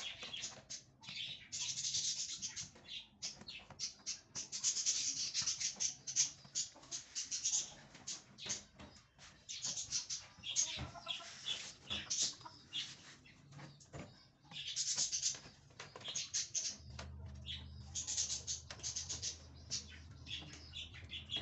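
A flock of birds calling in quick, busy bursts of high chirps. A low steady hum joins about seventeen seconds in.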